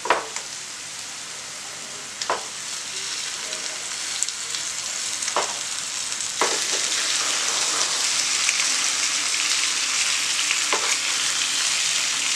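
Onion and spice masala sizzling in a frying pan, with a few sharp spatula knocks. About six seconds in, whole dressed quail go into the hot oil and the sizzle grows louder and stays strong while they are stirred.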